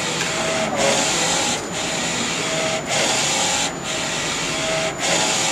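NC-610A digital textile (T-shirt) printer running a print job, its print-head carriage shuttling back and forth across the platen. The carriage makes a steady whirring hiss that drops briefly about once a second as it reverses at the end of each pass.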